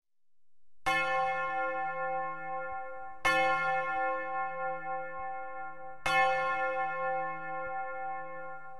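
A bell struck three times, about two and a half seconds apart, each stroke ringing on until the next.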